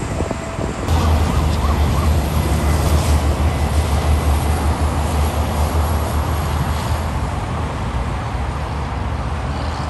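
Heavy diesel trucks going by in road traffic: a steady low engine drone that sets in about a second in and eases off toward the end, over tyre and road noise.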